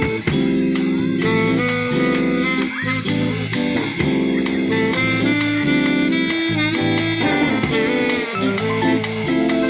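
Live band playing jazz-style music, with a saxophone or horn line carrying sustained notes over bass and rhythm.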